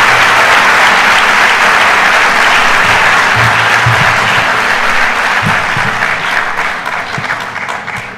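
Audience applauding loudly at the end of a talk, fading out over the last two seconds or so.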